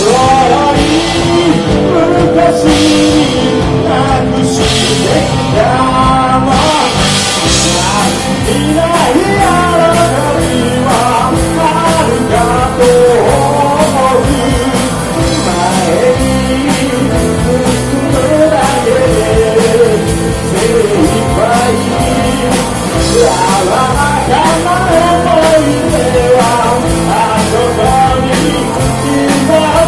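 Rock band playing live, with a lead vocal over a steady drum beat and band accompaniment.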